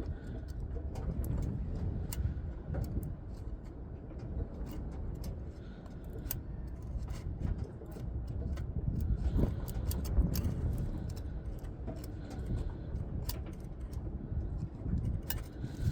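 Scattered small metallic clicks and clinks of a feeler gauge and tools being handled at a distributor's contact-breaker points, over a steady low rumble.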